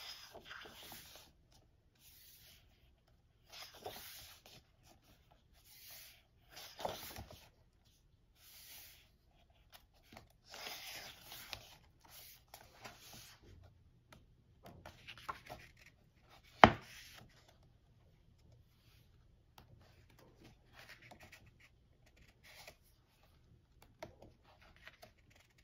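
Pages of a K-pop album photobook being turned by hand, the paper rustling and sliding in a string of short separate bursts. There is one sharp tap about two-thirds of the way through.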